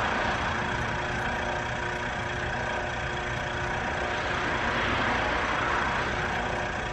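A steady motor hum with a few fixed tones that do not change, from the EcoRinse machine's small electric pressure pump.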